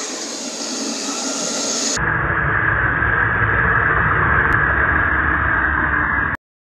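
1/16 Heng Long Type 99 RC tank driving on concrete on its Tamiya 540 electric motors: a steady high whine from the motors and gearboxes over the noise of the tracks. It grows louder as the tank comes close, then cuts off suddenly near the end.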